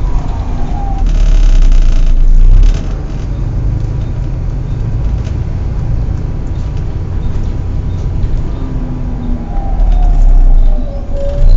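Volvo B7TL double-decker bus running with a loud low rumble that swells twice, once shortly after the start and again near the end. Faint whining tones slide down in pitch near the end.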